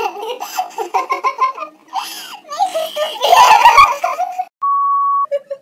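Two young women laughing and giggling together in irregular bursts for about four seconds. Near the end comes a short, steady electronic beep.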